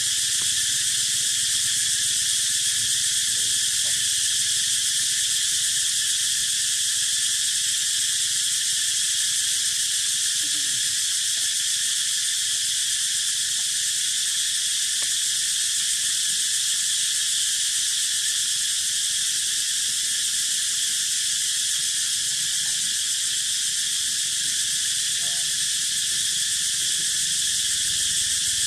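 Steady, unbroken high-pitched insect chorus.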